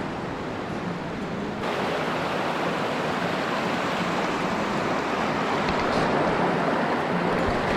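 Steady rushing of a glacial creek's water, a full hiss that steps louder about a second and a half in.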